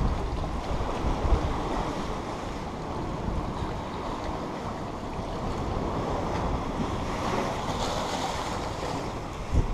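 Wind buffeting the microphone with a steady low rumble, over the wash of small waves against rocks at the water's edge.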